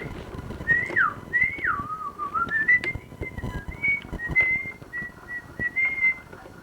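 A person whistling a short, wandering tune, the pitch sliding down and back up before settling into a few short repeated notes, over scattered light clicks and knocks.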